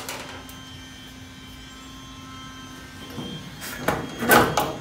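A single sharp hammer tap on a sheet-steel patch panel at the start. A few seconds later come several scraping, rattling sounds as the steel sheet is shifted and worked into place behind the Jeep tub's tailgate metal, the loudest near the end.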